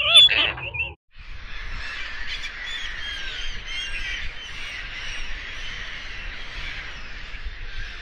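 Egyptian goose giving a harsh honking call for about a second, then, after a brief break, a large flock of gulls calling over one another, a steady din of many short overlapping squawks.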